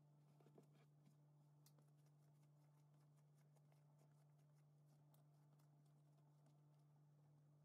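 Near silence: a faint steady low hum with a few faint soft ticks.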